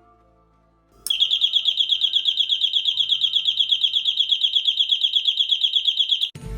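Electronic alarm switched on through a relay, sounding a shrill high-pitched tone that pulses about ten times a second. It starts about a second in and cuts off abruptly about five seconds later.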